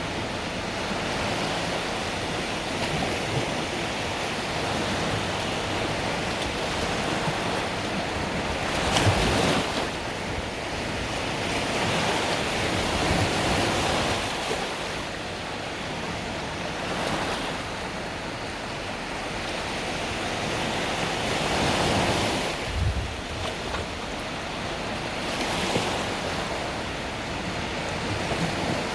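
Mediterranean sea waves breaking and washing on the beach, a steady surf wash that swells as each wave comes in, loudest about nine seconds in, with a short low thump just before the end of another swell. Wind rumbles a little on the microphone.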